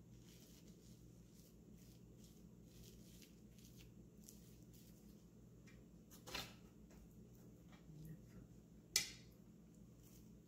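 Faint soft pats and crinkles of plastic wrap as fingers press and spread sticky sushi rice over a plastic-wrapped bamboo rolling mat, over a low steady hum. Two sharper clicks stand out, about six and nine seconds in, the second the louder.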